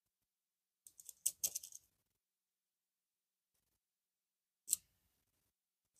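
Faint crinkling of thin plastic sheeting under a gloved hand, a quick flurry of crisp rustles about a second in, then a single soft click near the end.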